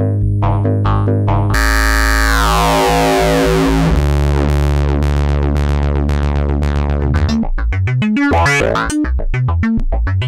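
Capt'n Big-O analog eurorack oscillator playing synthesizer music: a repeating pattern of short notes over a held bass tone, then about a second and a half in a dense, buzzy tone whose brightness sweeps downward, settling into a low drone. About three-quarters of the way through it changes to a fast run of sequenced notes.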